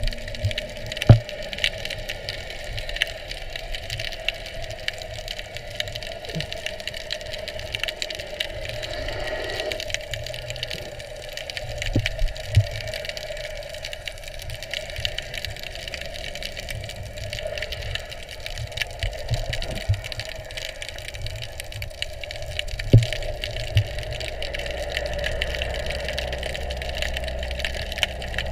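Underwater ambience: a steady mechanical drone carried through the water, with scattered sharp clicks and knocks.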